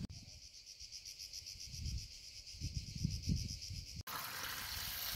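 Faint high-pitched chirping of insects in a steady, rapid pulse. About four seconds in it cuts to water running from a drinking-fountain spout into a plastic bottle, a faint even rush.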